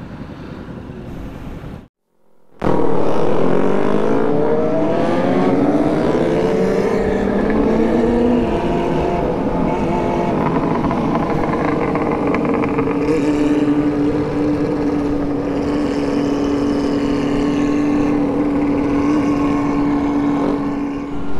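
Motorcycle engine heard from the rider's position. After a short dropout about two seconds in, it pulls away with the revs climbing, then holds a steady drone at cruising speed, with wind rushing over the microphone.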